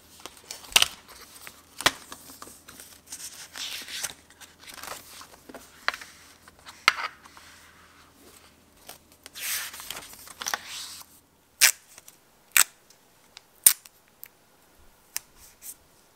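Leather ring-bound planner being handled: paper pages rustling and turning, broken by sharp clicks from its snap tab and metal binder rings. Near the end, four loud clicks come about a second apart.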